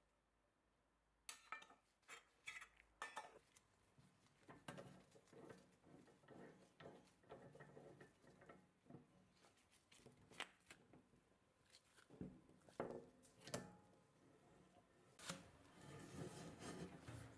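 Light metallic clinks, taps and rubbing as an empty tinplate can is handled and set into a hand-operated can-sealing machine, starting about a second in.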